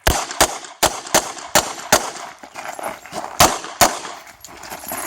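Revolver gunshots, a Smith & Wesson 929 firing .38 Short Colt: six shots in quick succession, a pause of about a second and a half, then two more, each with a short echoing tail.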